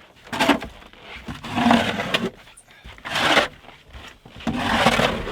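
Deep, fresh snow crunching under slow, heavy strokes, about four in all, each roughly a second and a half apart.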